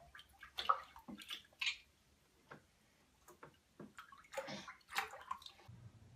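A baby's hands slapping and patting shallow bathwater, making irregular small splashes and sloshes.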